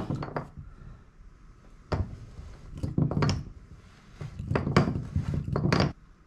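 Drain wrench turning a new tub drain flange down its threads as it tightens, metal grinding and clicking against metal. There is one click about two seconds in, then two longer spells of scraping and clunks.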